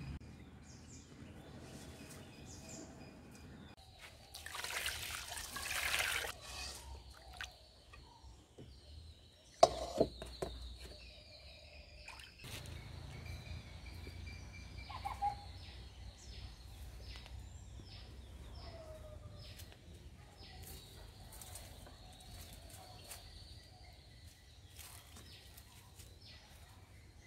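Birds chirping and calling, with a brief rushing noise about four seconds in and a single sharp knock around ten seconds.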